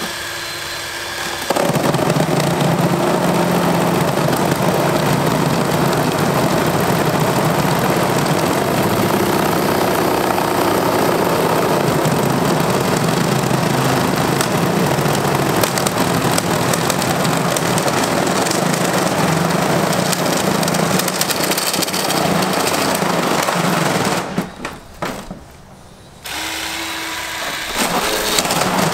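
Battery-powered electric chainsaw running and biting into a flat-screen TV's casing with a loud, grating cut. The chain stops briefly about twenty-four seconds in, spins up again with a plain motor whine, and bites in again near the end.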